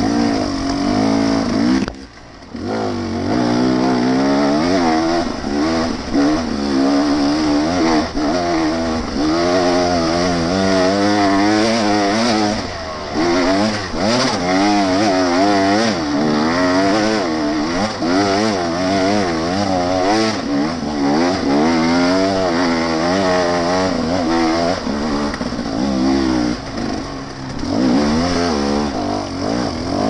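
Off-road dirt bike engine revving up and down continuously as it is ridden along a trail, with the throttle closed briefly about two seconds in.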